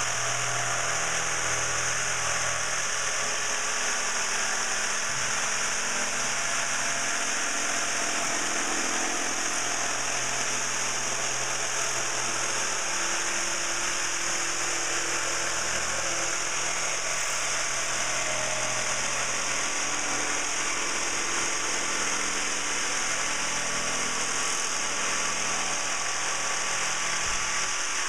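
Corded electric jigsaw running steadily, its blade sawing along a line through a sheet of plywood.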